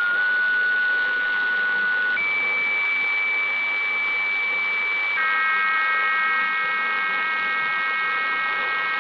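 Sangean 909X shortwave receiver in single sideband playing an HF radiofax signal: steady electronic tones over radio hiss. The pitch steps up to a single higher tone about two seconds in, then several tones sound together from about five seconds in. These are the tones at the close of a weather fax transmission.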